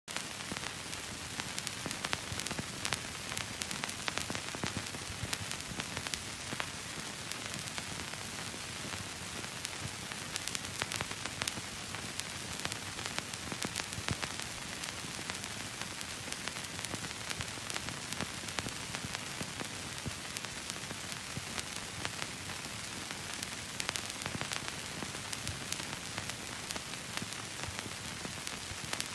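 Steady static hiss crackling with frequent small pops and clicks.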